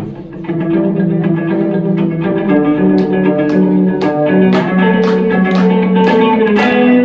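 Guitar-led music: plucked notes held and changing in steps over a low line, with sharp percussive hits joining from about three seconds in.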